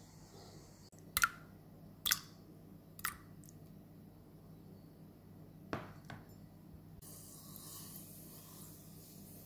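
Three eggs cracked one after another into a non-stick pot, three sharp cracks about a second apart, followed by two lighter knocks. Near the end, granulated sugar pours in with a steady hiss.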